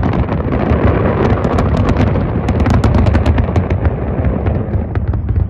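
A large fireworks display: a dense, rapid crackle of many bursts over a continuous heavy rumble of explosions, the crackling thinning out near the end.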